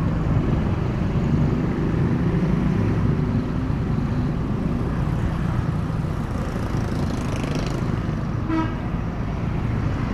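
Steady vehicle engine and road noise from travelling in traffic, with a short vehicle horn toot about eight and a half seconds in.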